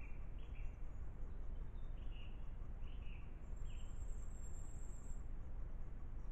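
Forest ambience through a camera trap's microphone: a steady low rumble and hiss, with short bird chirps repeating every second or so and a thin, very high-pitched trill lasting about a second and a half midway.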